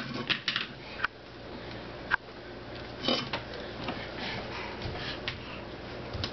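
Small terrier sniffing around with short snuffling breaths, with a few light knocks and taps.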